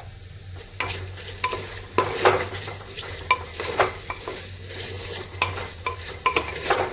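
A spoon stirring chopped ridge gourd in a clay pot on the flame: irregular scrapes and clinks against the pot, starting about a second in, with a light sizzle of the vegetables cooking without oil.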